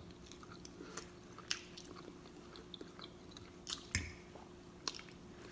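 A person chewing food with wet smacking mouth clicks, scattered and faint, the loudest about four seconds in, over a faint steady hum.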